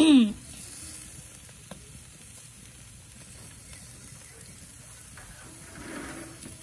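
Whole mackerel scad sizzling over hot charcoal on a grill grate, a steady faint hiss. At the very start comes one brief, loud sound that falls in pitch.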